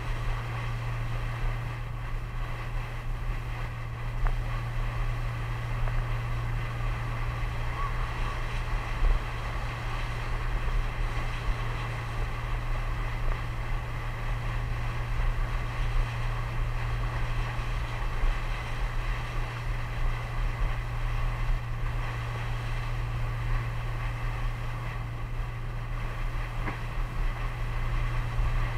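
Boat engine running at a steady cruising pace with an even hum, over water rushing past the hull and wind buffeting the microphone.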